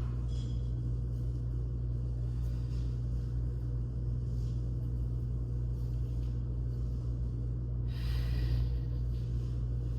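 Steady low-pitched rumble, with a brief noisy rustle about eight seconds in.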